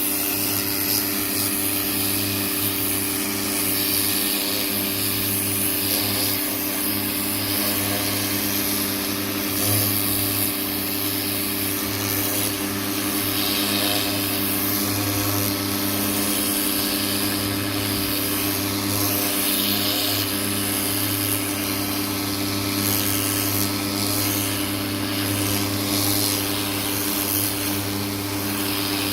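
Greenworks 1600 psi electric pressure washer running with a steady hum, its turbo nozzle spraying water against siding with a hiss that rises and falls.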